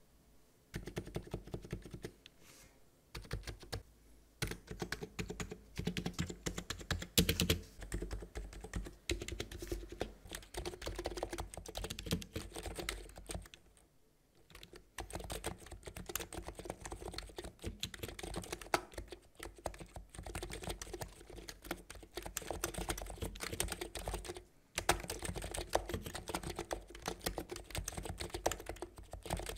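Typing on a Cox Endeavour electro-capacitive (non-contact) tenkeyless keyboard with PBT keycaps: a dense, continuous run of keystrokes starting about a second in, with short pauses about 14 and 25 seconds in.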